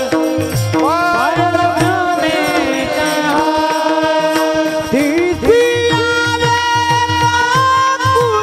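A men's chorus singing a Marathi kirtan chant together, in rhythm with the clash of small brass hand cymbals (tal).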